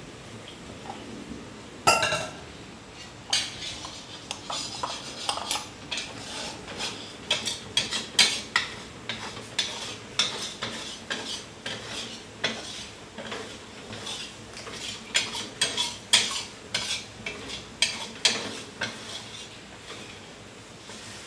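A metal spoon scraping and clinking against an enamel bowl and a wok, scraping out leftover bean-paste sauce. A sharp ringing clank comes about two seconds in, followed by many quick, uneven scrapes and taps.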